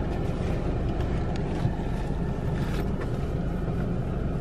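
Steady low rumble inside a car cabin, with a few light rustles and clicks from snacks being packed into a backpack.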